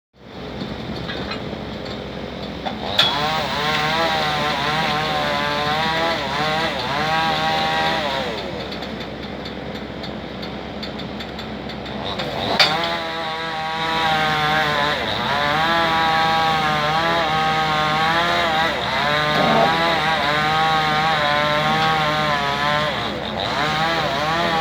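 Excavator's diesel engine and hydraulics working hard, the pitch repeatedly rising and falling as the load changes. Two sharp knocks, about three seconds in and again about halfway through.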